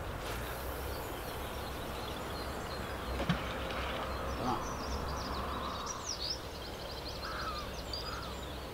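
Outdoor lakeside background: a steady low rumble with faint small-bird chirps, mostly in the second half, and a couple of light knocks about three and four and a half seconds in.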